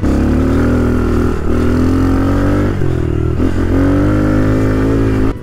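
Dirt bike engine running hard at high revs while the bike is ridden up a muddy forest track. Its pitch dips briefly about a second and a half in and twice around three seconds, then holds steady.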